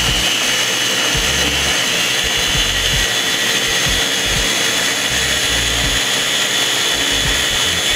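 Ninja food processor motor running steadily with a high whine, pureeing a thick mixture of banana, avocado, coconut milk, olive oil and honey.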